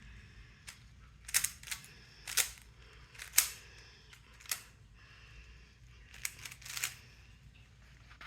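Plastic Rubik's cube being turned during a timed solve: irregular short clicks and clacks from the layers turning, some in quick pairs.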